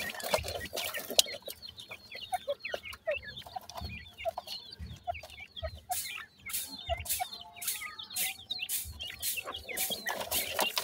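Young francolins (teetar chicks) giving many short, high chirps and peeps while they peck and scratch in loose dry soil, with scattered sharp clicks and soft thumps from beaks and feet in the dirt.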